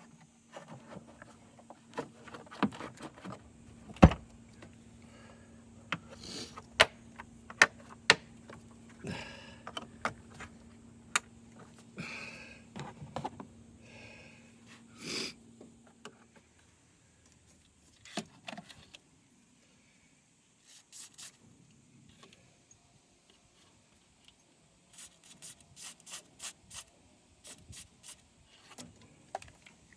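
Hand tools and metal parts clicking and knocking during work on a car's starter, over a steady low hum that stops about halfway through. Near the end, a run of short, quick scraping or rubbing strokes.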